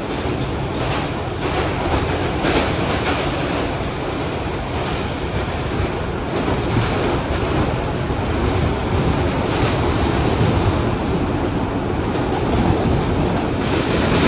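R142 subway train running at speed through a tunnel, heard from inside the car: a steady loud rumble of wheels on rail. A thin high whine sounds twice in the first few seconds.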